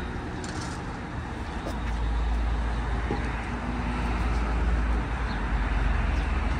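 Motor vehicle noise: a steady low engine rumble with road hiss that grows louder about two seconds in.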